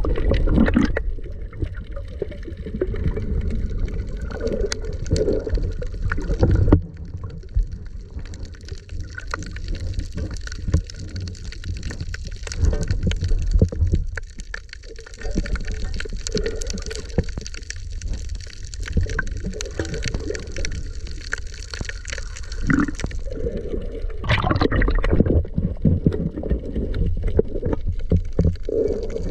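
Water heard underwater through the camera: muffled sloshing and gurgling over a steady low rumble, with many small clicks and knocks.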